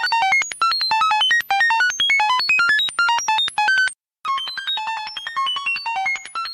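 Electronic beeps in a rapid stream, about seven a second, each a short tone at a different, randomly jumping pitch. The stream breaks off for a moment about four seconds in, then resumes.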